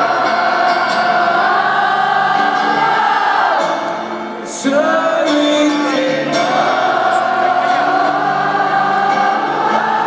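An arena crowd sings along in unison to a live rock song, with the singer on acoustic guitar, heard from among the audience. The notes are long and held, with a short break about halfway through.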